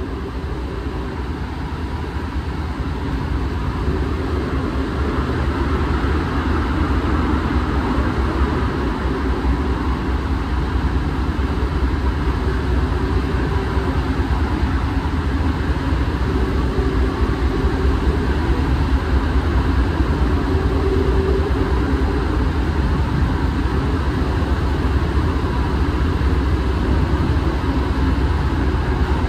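Alstom NS-93 rubber-tyred metro train running between stations, heard from inside the car: a steady rumble of tyres and running gear with faint steady whining tones, growing a little louder over the first few seconds and then holding level.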